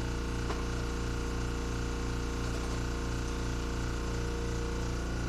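Air compressor running steadily: a constant mechanical hum with a slight regular throb.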